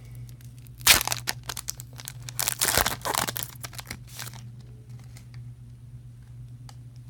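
Trading-card pack wrapper being torn open and crinkled, in crackling bursts for about three seconds starting about a second in, then a few faint clicks. A low steady hum runs underneath.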